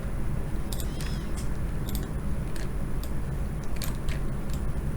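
A handful of light, sharp clicks at uneven intervals over a steady low hum.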